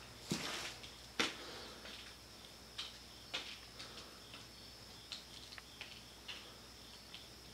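Scattered light clicks and taps, two sharper ones near the start and then fainter, irregular ticks, over a faint steady high-pitched whine.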